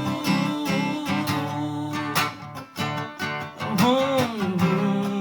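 Acoustic guitar strummed in a steady rhythm. About four seconds in, a voice sings a note that rises and falls.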